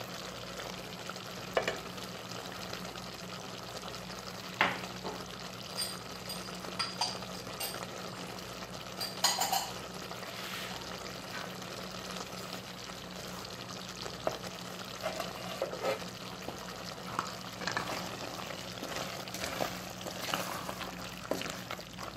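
Chicken hearts and vegetables simmering in a soy-vinegar sauce in a metal pot, a steady bubbling hiss, with a spoon now and then clinking and scraping against the pot, sharpest about four and a half and nine seconds in. A steady low hum runs underneath.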